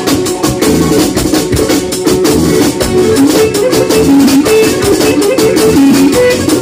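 Loud live band music through a PA: a melody line played over a steady drum beat.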